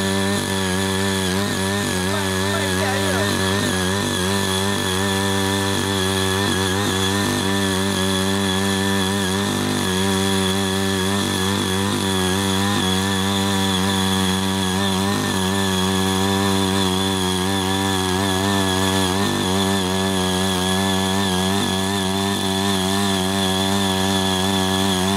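The 5 hp engine of a CY80 mini rotary tiller runs steadily at working speed while its six rotary tilling blades dig through the soil. The pitch stays even, with only slight wavers as the load changes.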